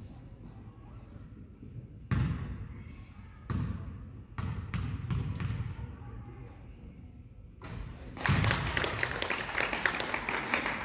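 A basketball bounces a few times on the hardwood gym floor as it is dribbled at the free-throw line. From about eight seconds in, spectators clap and cheer for a made free throw.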